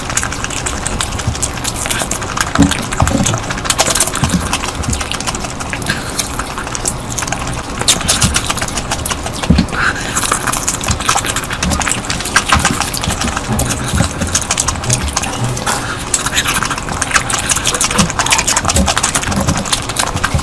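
A person eating noisily close to the microphone: steady chewing with a dense run of irregular mouth clicks and smacks.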